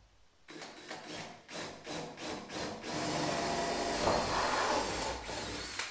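Tool work on the metal trailer door to shift the handle fitting slightly so the latch lines up: a run of about eight quick scraping strokes, then a power tool running steadily for about three seconds, louder than the strokes.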